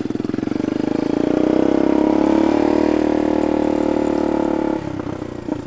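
Motorcycle engine running through a homemade bamboo exhaust with a valve-switched bypass pipe. The revs climb and get louder over the first couple of seconds, hold steady, then drop near the end.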